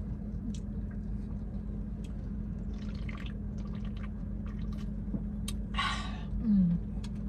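Someone sipping and swallowing grape soda, with small wet clicks, then a short breathy exhale about six seconds in.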